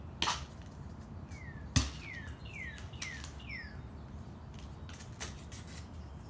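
A bird calling five times, short falling notes about half a second apart. Sharp clicks and one loud knock, about two seconds in, come from the capsule bottle being handled.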